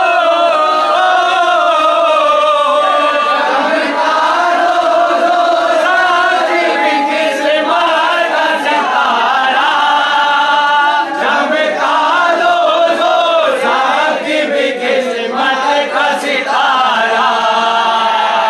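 A group of men singing and chanting a devotional song together in unison, loud, with many voices raised.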